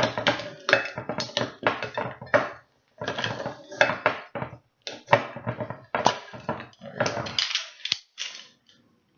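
Lever-style rabbit corkscrew being worked on a wine bottle, pulling a stiff synthetic plastic cork: a run of mechanical clicks, clacks and scrapes in bursts with short pauses as the lever is pumped.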